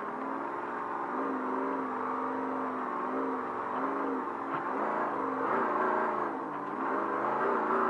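Trophy truck's engine heard onboard at low speed, its note holding steady for a few seconds and then dipping and rising repeatedly as the throttle is eased and reapplied. Road and wind noise run under it.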